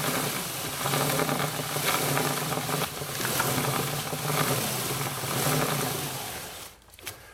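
Stiff-bristled chain brush scrubbing a kerosene-soaked motorcycle drive chain as the chain runs through it, a steady scratchy rasp over a low hum of the turning chain and rear wheel. It stops abruptly near the end.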